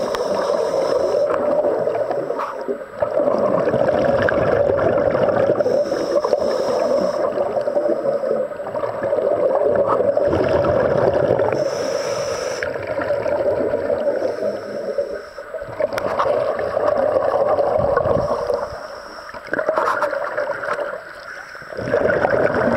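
Scuba regulator breathing heard underwater: a short hiss about every six seconds, then a long gurgling rumble of exhaled bubbles.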